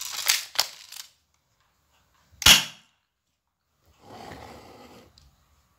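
Spring-powered Glock 18C replica airsoft pistol, converted to fire 6 mm BBs: a few sharp clicks as the slide is racked to cock it, then one loud single shot about two and a half seconds in, the spring piston snapping forward with a short thump.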